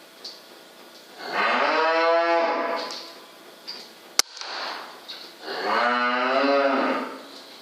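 Cattle mooing: two long, loud moos a few seconds apart. Between them comes one sharp crack, the shot of the air rifle.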